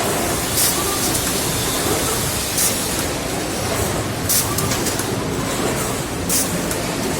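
Factory noise from an automated chest freezer production line: a steady machinery din with short hissing bursts, like pneumatic air exhausts, about every two seconds.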